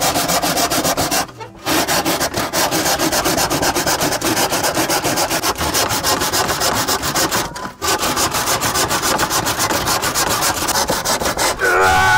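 Hand saw cutting across a corrugated fibre-cement (slate) roofing sheet: fast, steady back-and-forth rasping strokes, broken by short pauses about a second and a half in and again near eight seconds. Just before the end a man lets out a loud, falling groan.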